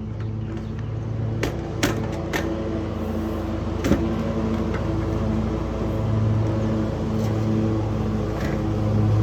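Lasko box fan running with a steady low motor hum that grows slightly louder in the second half. A few sharp clicks or knocks sound in the first four seconds.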